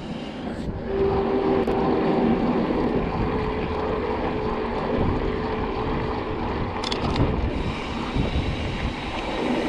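Mountain bike rolling along a towpath at riding speed: wind buffeting the microphone over the steady rumble of knobby tyres.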